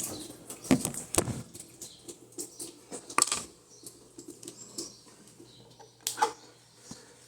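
Irregular clicks and knocks from hands working on an Electrolux LTE12 washing machine's transmission, with a faint steady hum setting in about a second and a half in.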